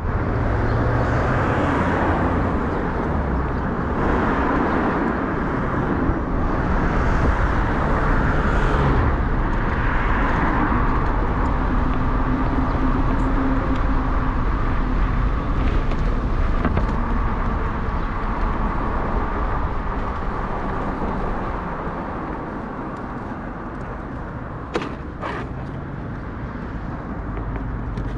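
Continuous road and street-traffic noise from a ride on an electric bike, a steady rushing noise that eases slightly in the later part. A few sharp clicks come near the end.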